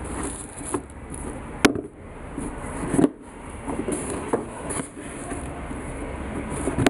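Handling noise as sneakers in cardboard boxes are touched and the phone is moved: soft knocks and rustling, with a sharp click about a second and a half in, a thump about three seconds in, and another sharp click near the end.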